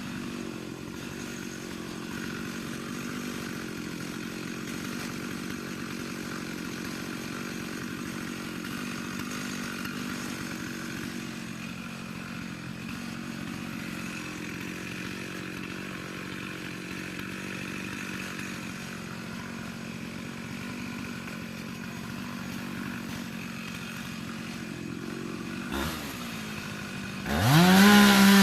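Chainsaw engine idling steadily, then revved loudly near the end, its pitch sweeping up and down.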